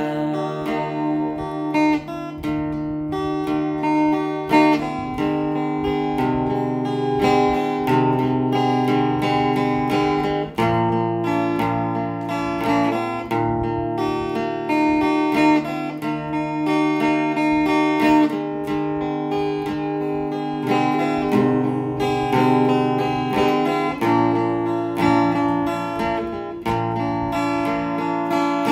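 An acoustic guitar played on its own, without singing: a continuous passage of plucked and strummed chords, changing every second or two.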